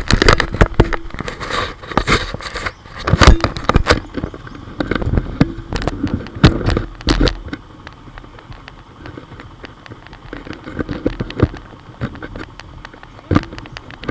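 Irregular knocks, clatters and scrapes close to a motorcycle-mounted camera on a rocky dirt track, busiest in the first half and sparser from about eight seconds in.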